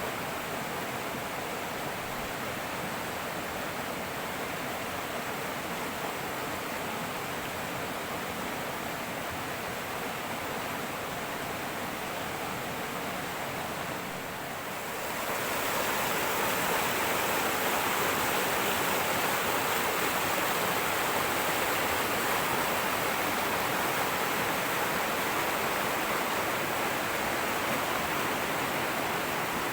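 Fast-flowing river rushing over rocks, a steady roar of water. About halfway through it becomes louder and brighter.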